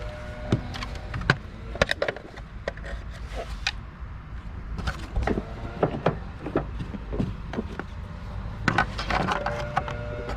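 Irregular clicks, taps and knocks of parts and tools being handled, coming in clusters with short gaps between.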